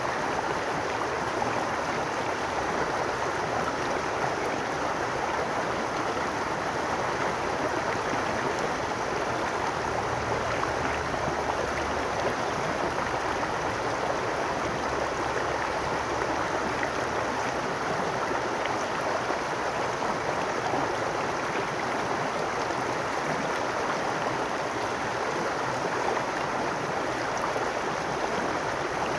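Babbling brook: water running and splashing steadily over stones, an unbroken rush.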